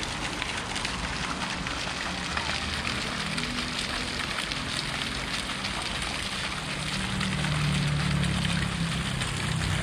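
Small decorative fountain jets splashing into a shallow pool: a steady hiss of falling water. A low hum swells for a couple of seconds near the end.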